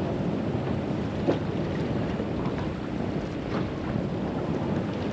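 Steady wind noise rushing over the microphone, with a couple of faint clicks.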